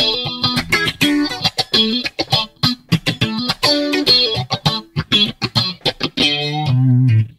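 Yamaha Pacifica electric guitar played through a Line 6 Helix multi-effects unit with a phaser effect: a quick run of picked single notes, settling onto a few held lower notes near the end.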